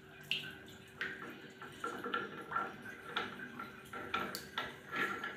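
Small metallic clicks and taps, irregular and about every half second, as a brass diverter part is turned by hand into the chrome body of a wall mixer tap.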